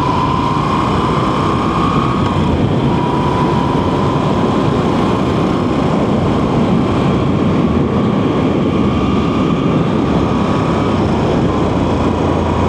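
Motorcycle riding at road speed: the engine runs under a steady rush of wind, its pitch rising slightly and dropping back about two seconds in and again near eleven seconds.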